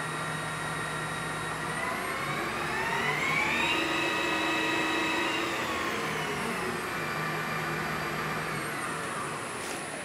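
Colchester 18-inch variable speed lathe's spindle drive running with a steady whine. The whine rises in pitch about two seconds in as the spindle speed is turned up, holds for a couple of seconds, then falls back as the speed is turned down.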